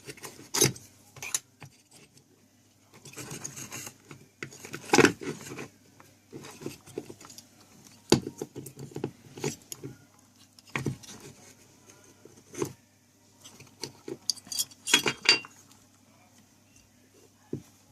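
Irregular metallic clicks, scrapes and clatter as the bent steel tabs of a small E-core transformer's metal cover are pried back and the cover is worked off, with a faint steady low hum underneath.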